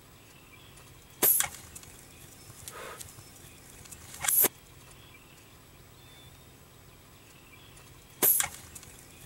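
Compound bow being shot at a turkey gobbler: three short, sharp snaps, about one, four and eight seconds in.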